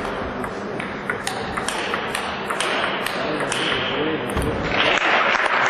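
Table tennis rally: the ball clicking sharply off bats and table about three times a second, over hall murmur. Applause breaks out about five seconds in as the point ends.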